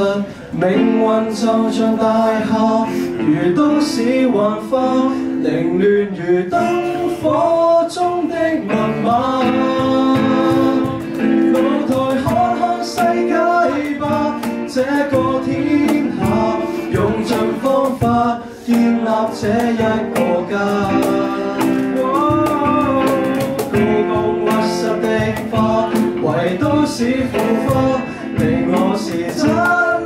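Two male voices singing a pop ballad together into microphones, accompanied by a strummed acoustic guitar.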